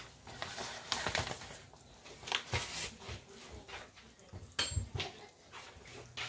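A utensil scraping and knocking in a skillet in irregular strokes, stirring flour into oil to start a roux, with a sharper clink about four and a half seconds in.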